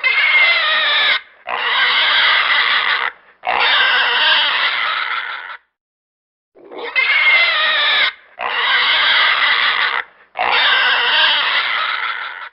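Piglet squealing: two runs of three long, wavering squeals, each lasting one to two seconds, with a silent pause of about a second between the runs.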